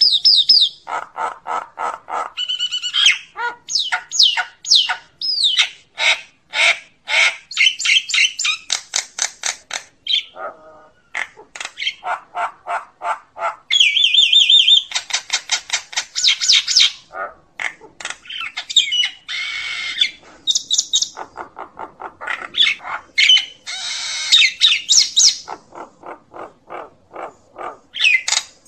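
Common myna calling to its flock: a varied run of harsh squawks, raspy gurgles, rapid strings of repeated notes and short whistles, broken by brief pauses.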